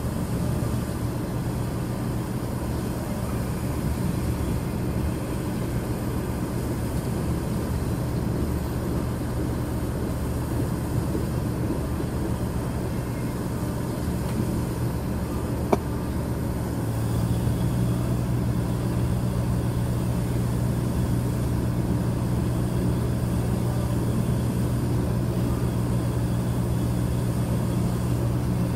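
Freight train of tank cars rolling slowly past, with a steady low engine drone that grows louder a little past halfway. A single sharp click comes just before that.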